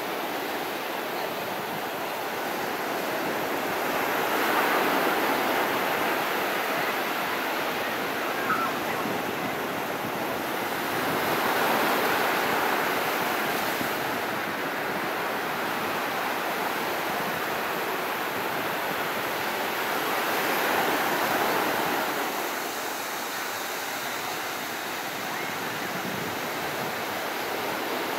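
Ocean surf washing up a sandy beach: a steady rush of breaking waves that swells louder each time a wave comes in, about every eight seconds.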